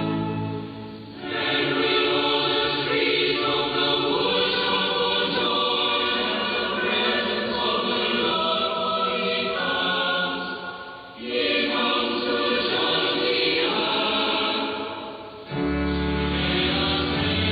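Choir singing a liturgical hymn in long phrases with brief breaths between them. It is heard through a longwave AM radio receiver, so the sound is cut off above about 5 kHz.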